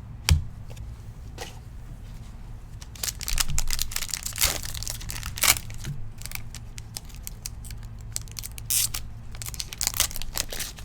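A Prizm football card pack's wrapper being ripped open and crinkled in quick rasping tears, in two spells of crackling. A sharp knock comes just after the start.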